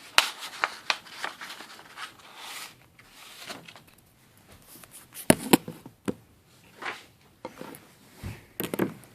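Large sheet of heavyweight construction paper being handled and folded: irregular crinkles, rustles and sharp crease snaps, with a few louder crackles about five seconds in and near the end.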